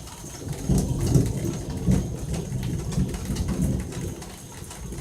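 Toads calling in a chorus of low pulsing calls, loudest from about a second in to about four seconds in, over light rain.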